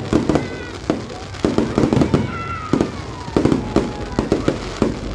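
Fireworks display at close range: a rapid, irregular string of loud bangs and bursts, about three a second.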